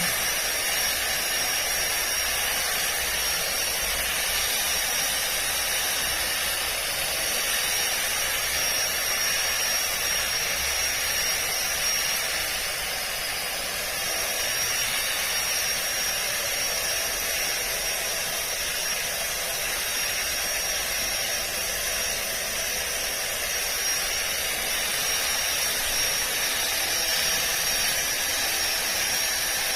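Makita 18V cordless split-shaft ground trimmer running steadily: a high motor whine over a rushing hiss. The whine dips briefly in pitch about halfway through.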